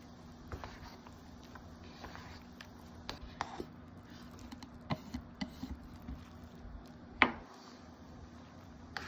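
Wooden chopsticks tapping, clicking and scraping against a paper cup while stirring and lifting wet instant noodles, in scattered light taps with one sharp louder click about seven seconds in.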